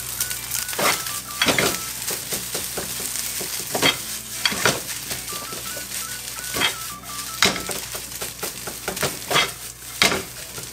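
Egg-coated rice sizzling in oil in a nonstick frying pan while a spatula stirs and scrapes it, with irregular sharp scrapes and knocks against the pan. The rice is being fried until the egg on its surface sets.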